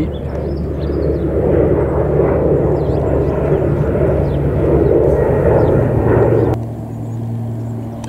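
Steady low engine rumble of an aircraft passing over, with faint bird chirps above it. The rumble drops suddenly to a quieter steady hum about six and a half seconds in.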